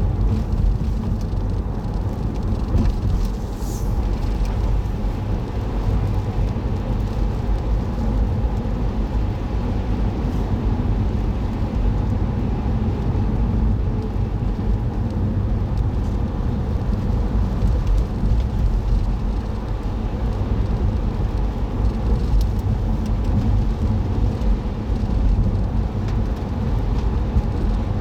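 Steady low rumble of a car driving, engine and tyre noise heard from inside the cabin by a dashboard camera.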